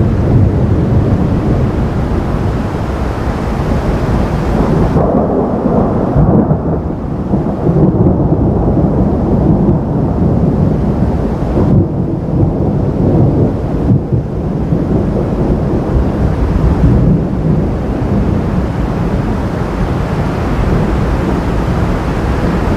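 Thunder rumbling: a loud, low, rolling rumble that carries on unbroken, swelling and easing.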